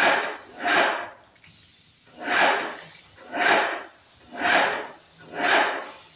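Graco airless spray gun spraying oil-based primer in short passes: a hiss about half a second long, about once a second, six times, with a longer pause between the second and third.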